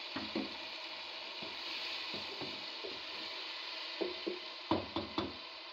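Wooden spoon stirring a pot of dal and potatoes, knocking and scraping against the pot again and again, with a quick run of louder knocks near the end, over a steady sizzling hiss of the simmering curry.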